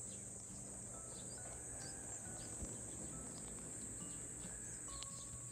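Steady high-pitched insect chorus droning without a break, under faint room tone.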